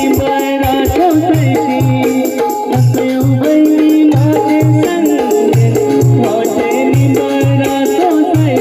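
Live stage band playing a song, with keyboard, drums and a steady shaker-like ticking rhythm, while a man sings in a high, woman-like voice.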